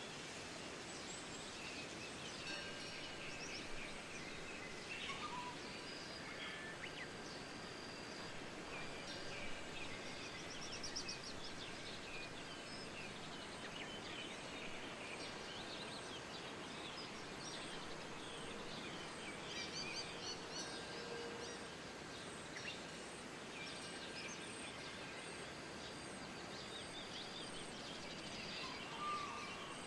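Steady soft wind with many small birds chirping and trilling throughout. Faint drawn-out ringing tones sound underneath.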